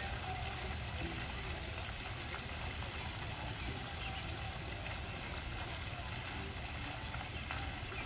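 Water from a tiered garden fountain splashing steadily, its centre jet and spray falling back into the tiled basins.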